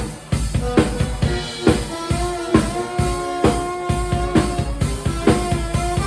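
Live band playing an instrumental passage: a drum kit keeps a steady beat with kick and snare strokes a little under a second apart, under sustained pitched notes from the other instruments.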